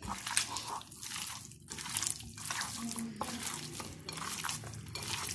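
Hands squeezing and turning raw chicken pieces coated in garlic paste, salt and black pepper: wet squelching and slapping in an irregular run of short smacks.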